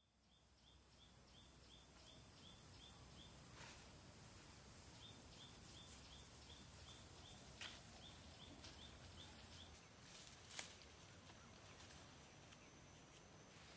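Faint forest ambience: a steady high insect drone that cuts off suddenly near the end, with a repeated chirping call about three times a second in two runs. A few sharp clicks stand out, the loudest about ten seconds in.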